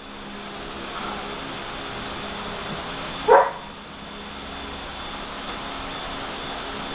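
A dog barks once, short and loud, about three and a half seconds in, over a steady whirring background noise.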